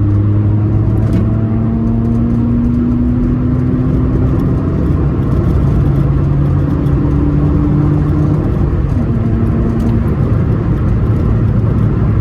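Nissan Micra K11's four-cylinder petrol engine running under way, with tyre and road noise, heard from inside the car. The engine note rises slowly and drops about two-thirds of the way through, then settles.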